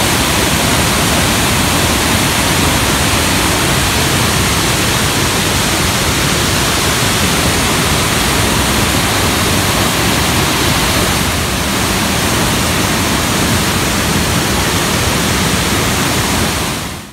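Tahquamenon's Upper Falls, a wide waterfall with a heavy flow pouring over its full width: a loud, steady rush of falling water.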